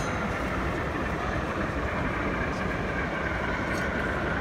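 Steady background hubbub of a crowded exhibition hall, with a faint steady whine running through it.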